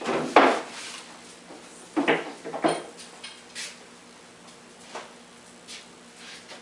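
Several knocks and clatters, as of hard objects being handled or set down: the loudest cluster in the first second, two more about two and two and a half seconds in, then a few fainter taps.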